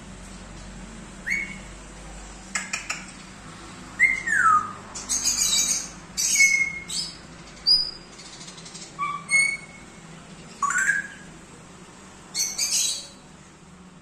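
African grey parrot making a run of short sounds with pauses between: whistles that slide in pitch, mostly downward, a few quick clicks, and harsh squawks.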